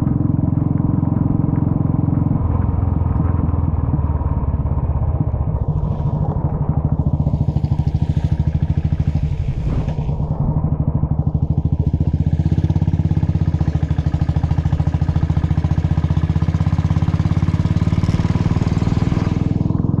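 Motorcycle engine running steadily while riding, easing off briefly about halfway through, with a steady hiss over it for much of the second half.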